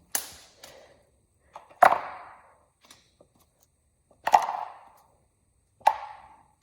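Four sharp knocks, spaced about a second and a half apart, each followed by a short ring: axle hardware and heavy-duty plastic sorting containers being handled and set down.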